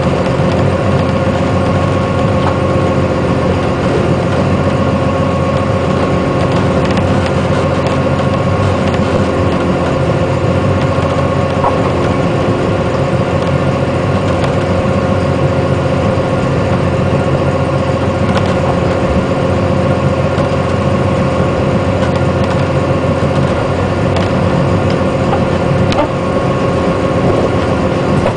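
An engine on a sea urchin diving boat running steadily, a constant drone with an even tone on top, and a few faint clicks and knocks from the deck.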